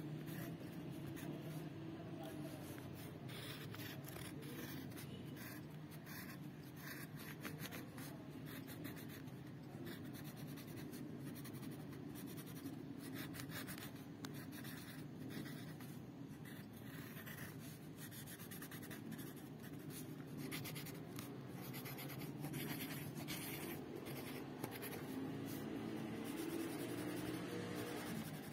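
Felt-tip marker scratching on paper in many short, quick strokes as the letters are coloured in, over a steady low hum.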